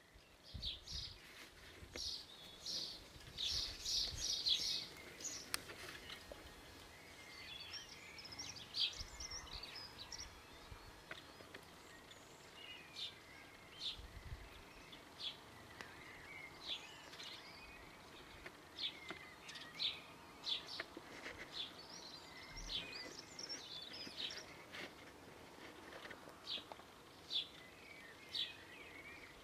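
Garden birds calling: many short, high chirps and calls, thickest in the first few seconds, then scattered, over a faint outdoor background.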